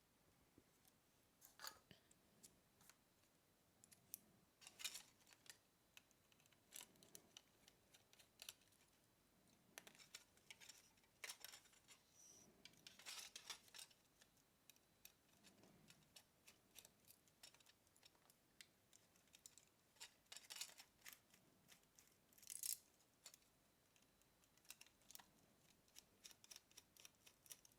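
Near silence, broken by faint scattered clicks, taps and short scrapes of small parts and tools being handled.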